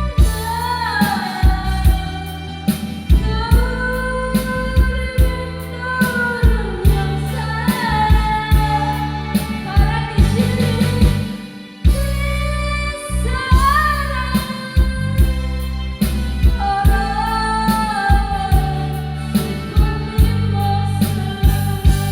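Background music: a song with a singer's melody over bass and a steady drum beat, briefly dropping away about twelve seconds in.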